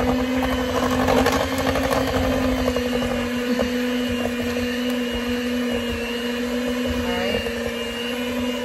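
Handheld electric mixer running steadily at one speed, its beaters working through peanut butter cookie dough in a stainless steel bowl as flour is slowly added.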